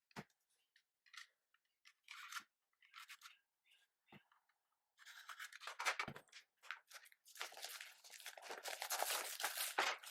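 A product box's packaging being handled and opened: a few scattered clicks and taps, then from about five seconds in a continuous crinkling and tearing of wrapping.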